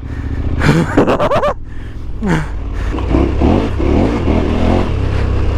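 KTM 1290 Super Adventure S's V-twin engine running under a low steady drone, with the revs swinging up and down, a quick sweep about a second in and more rises and falls in the second half, as the bike is ridden over rough off-road ground.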